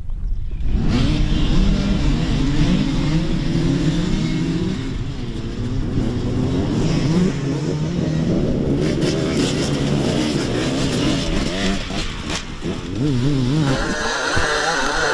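Off-road enduro motorcycle engines revving up and down, the pitch rising and falling with the throttle. A higher-pitched engine takes over near the end.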